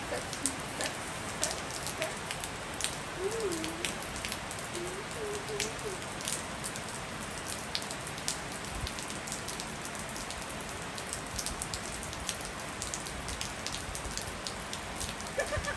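Steady rain falling on a wet tiled rooftop, an even hiss scattered with many sharp drop and splash clicks.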